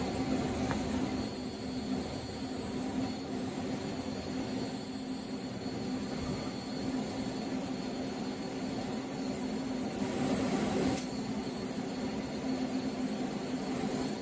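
TIG welding arc running steadily while a weaving bead is laid: an even hiss with a constant buzzing hum and no spatter crackle.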